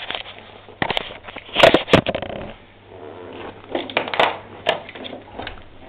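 Handling noise: irregular knocks, clatters and scraping as the camera is moved about and set down on a concrete floor.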